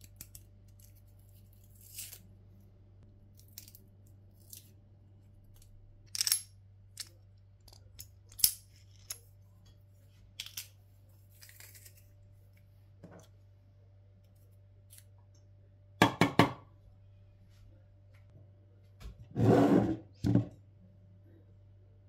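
Small kitchen handling sounds of garlic being prepared: a knife scraping and clicking while peeling a garlic clove, then a metal garlic press squeezed over a plastic tub of yogurt. A few louder clacks come about two-thirds of the way in, and a longer rasping rub near the end.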